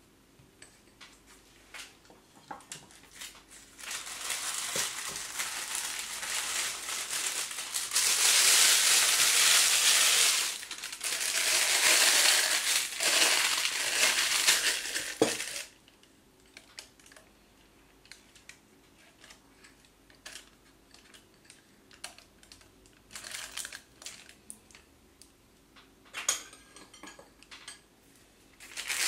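Thin plastic piping bag crinkling as it is handled and opened inside a drinking glass, loudest for several seconds in the middle, with quiet scrapes and light clinks of a spatula and glass bowl before and after.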